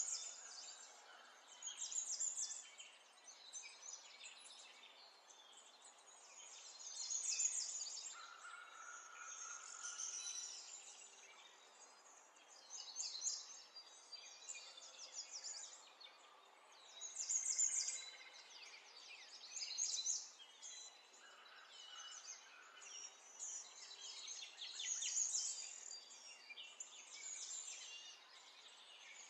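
Birds chirping in short, high-pitched phrases that come every few seconds, over faint outdoor hiss.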